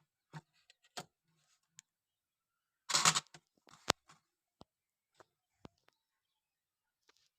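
Scattered small clicks and taps of hand tools at work on a phone circuit board, with one brief scraping rustle about three seconds in followed by a sharp click.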